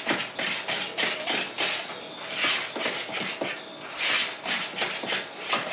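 Spoon stirring thick cornbread batter by hand in a mixing bowl: a quick, uneven run of wet scraping and slapping strokes, several a second.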